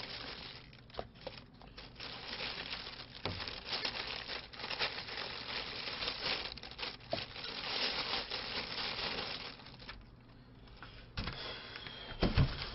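Thin plastic carrier bag crinkling and rustling as hands work it open around takeaway food containers, with a couple of dull knocks near the end.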